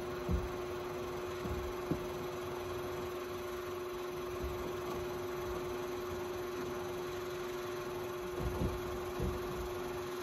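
A steady, even hum with a faint hiss under it, broken by a few dull low thumps: one just after the start, one about two seconds in, and a small cluster near the end.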